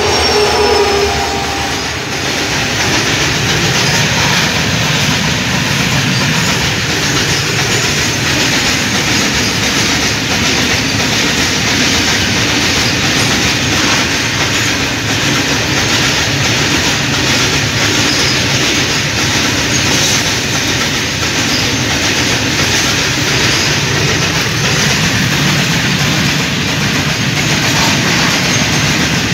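Freight train hauled by WDG-4 and WDG-4D diesel locomotives passing at speed close by. A horn note dies away in the first second. Then a long, steady rumble and clatter of wagon wheels over the rail joints follows.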